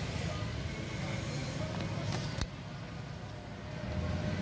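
Steady low rumble of street traffic engines, with a short click about two and a half seconds in, after which a high hiss drops away.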